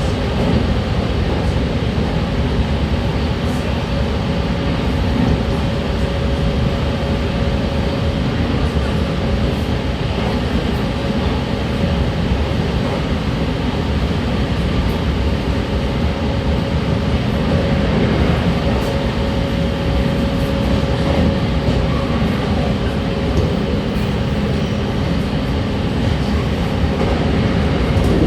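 Running noise inside the motor car of a JR Kyushu 813 series EMU at speed: a steady rumble of wheels on track, with a steady whine from the drive running under it.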